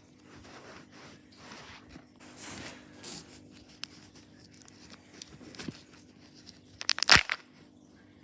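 Kinder Joy egg's foil wrapper being torn and crinkled, then a few sharp plastic clicks. A loud burst of clicks comes about seven seconds in.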